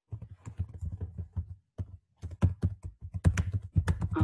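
Typing on a computer keyboard: a quick run of key clicks that pauses briefly a little before the middle, then comes faster and louder.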